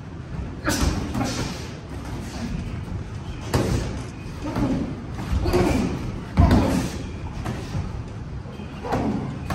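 Padded boxing gloves landing punches during sparring: a handful of dull thuds spread unevenly, the loudest about two-thirds of the way through.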